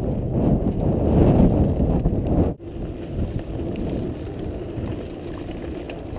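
Mountain bike riding on a wet dirt trail: a steady rumble of knobby tyres rolling over dirt and wind on the camera microphone, with small rattles and ticks. The rumble is loud at first, then drops suddenly about two and a half seconds in and goes on quieter.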